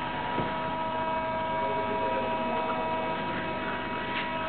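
Steady electrical hum and whine from powered lab electronics, a few high pure tones held constant over a low haze.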